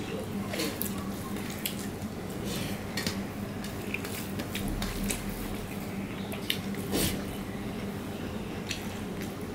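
Fingers mixing rice and fish curry on a stainless steel plate: soft wet squishing with scattered light clicks of fingers against the metal, one louder click about seven seconds in.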